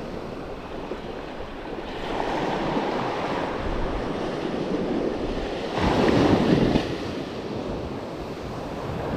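Small ocean waves breaking and washing up a sandy beach, with wind buffeting the microphone; the surf swells louder about two seconds in and is loudest around six seconds in.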